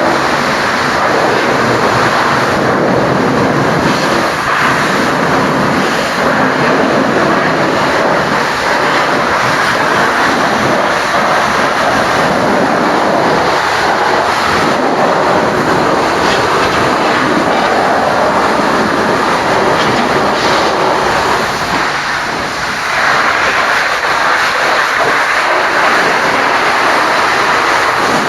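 High-pressure washer jet spraying water onto a truck's bodywork: a loud, steady hiss of spray, easing briefly about 22 seconds in.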